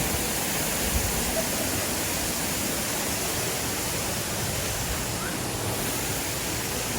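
Steady rush of a waterfall, close by.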